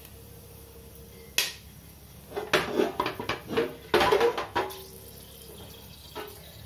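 Large steel cooking pot being gripped with a cloth and shifted on the stove: a sharp click a little over a second in, then about two seconds of metal clattering and scraping with a ringing note.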